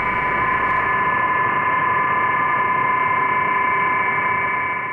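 Shortwave receiver audio from the 20-metre PSK31 frequencies: steady band hiss with several PSK31 signals heard as steady tones layered on top. It begins to fade out right at the end.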